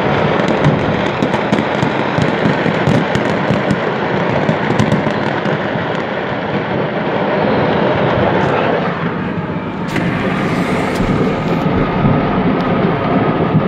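Stored fireworks going off after an accidental explosion: a rapid, irregular string of cracks and bangs through about the first five seconds, over the steady noise of the car driving past.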